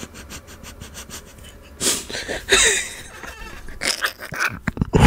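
A person laughing hard in breathy, wheezing bursts, with short quieter gaps between.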